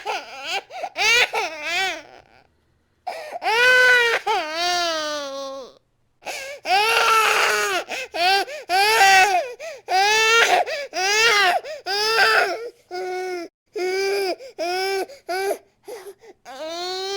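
A baby crying hard: long cries with brief pauses for breath, then a run of shorter cries, about one a second, in the last few seconds.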